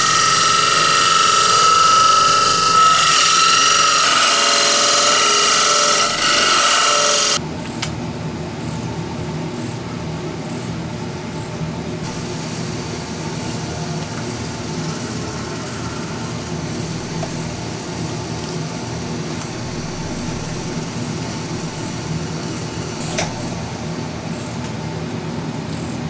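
Nova wood lathe running at about 1,200 rpm with a pine disc spinning on it while a hand-held pad is pressed against the turning wood, a steady hum. For the first seven seconds a louder, shrill power-tool noise with a steady whine plays, then cuts off abruptly.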